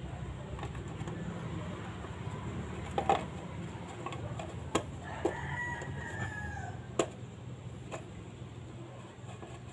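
A plastic wheel cover being fitted onto a car wheel by hand: a few sharp clicks and knocks over a steady low hum. A rooster crows once in the background near the middle.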